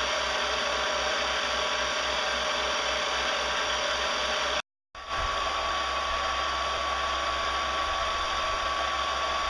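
Benchtop milling machine's spindle running steadily during its break-in procedure: a continuous whir. It cuts out for an instant about halfway, then runs on with a steady high whine added.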